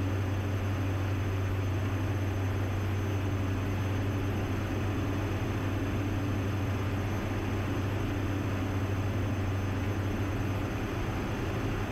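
Steady low cabin drone of a Diamond DA-42NG Twin Star's two Austro turbodiesel engines and propellers, with airflow noise, holding a constant power setting on final approach with full flaps.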